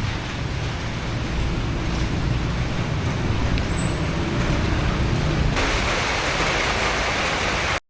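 Heavy rain falling as a steady hiss over a low rumble. About five and a half seconds in the hiss turns brighter and harsher, and all sound cuts off abruptly just before the end.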